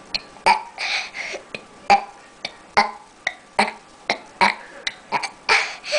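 A girl burping over and over in short, sharp burps, about two a second, with a couple of longer breathy ones about a second in and near the end.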